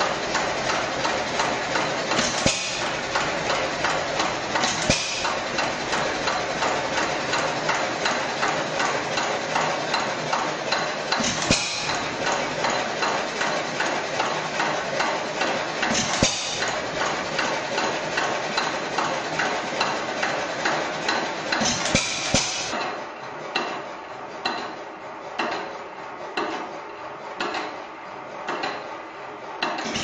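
Hit-and-miss stationary engine running: a fast, steady mechanical clatter, broken every few seconds by a louder bang as it fires. Late on the sound turns quieter and duller.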